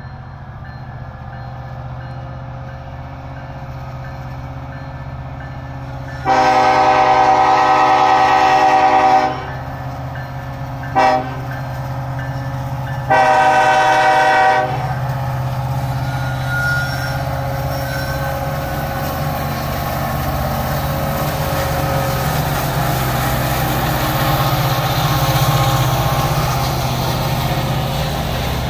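Horn of the lead Union Pacific diesel locomotive sounding for a grade crossing: a long chord blast, a short one, then another long one. After it, the locomotives' diesel engines rumble louder and louder as they come up and roll past.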